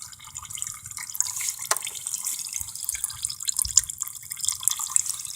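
Engine oil draining from a Craftsman riding mower's engine, a steady trickle with many small drips.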